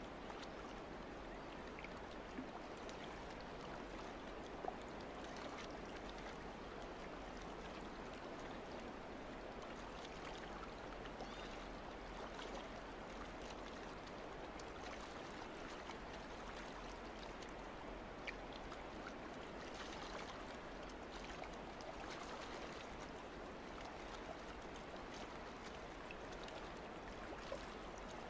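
Water lapping and trickling against a boat hull: a steady, faint wash with a few small clicks.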